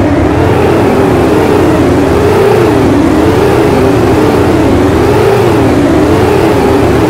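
Experimental soundtrack drone: several overlapping tones weaving slowly up and down in pitch and crossing one another, over a steady low rumble and hiss, with no break.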